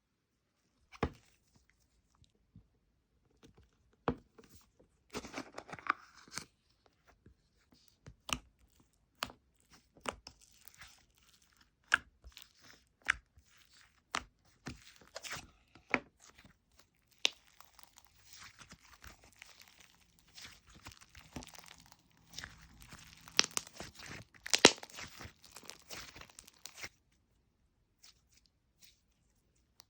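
Hands handling a slime and its container. Scattered sharp clicks and taps come first, then a denser run of crackling and rustling that lasts about ten seconds and stops shortly before the end.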